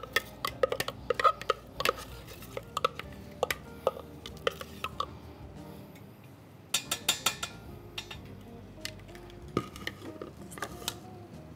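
A utensil clinks and taps against a dish while spiced sweet-potato filling is spooned back into the potatoes. The sharp clicks come in a quick flurry, pause briefly, then return in another run about seven seconds in. Quiet background music plays underneath.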